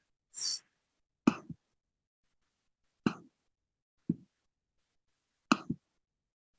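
A short breathy hiss, then a handful of sharp, separate clicks over the next few seconds, two of them in quick pairs: computer mouse clicks picked up by the presenter's microphone as she works the slideshow menu to end the show.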